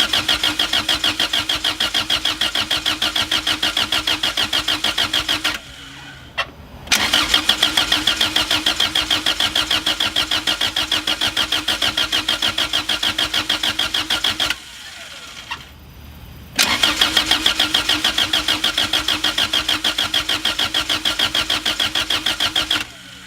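Honda B-series GSR engine turned over on its starter in three long cranking runs of rapid, even pulsing, each cut off abruptly. The engine does not catch. It is being cranked to build oil pressure after a new oil pan install, and the oil pressure light stays on.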